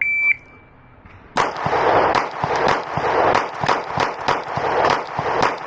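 Shot timer start beep, then after about a second and a half a Glock 26 Gen 5 9mm pistol fires a rapid string of shots, about three or four a second, in a timed drill. The first shot comes noticeably later than the ones that follow.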